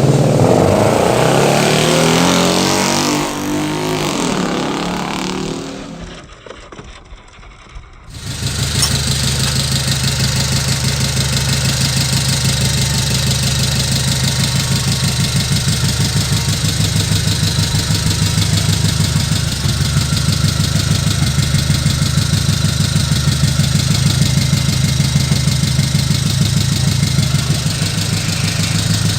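An engine running: its pitch rises and falls as it revs in the first few seconds. After a brief drop about six seconds in, it settles into a steady idle with an even throb.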